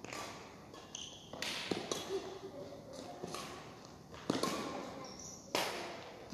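Badminton rackets striking a shuttlecock in a rally: several sharp, echoing hits spread a second or more apart, ringing in a large hall.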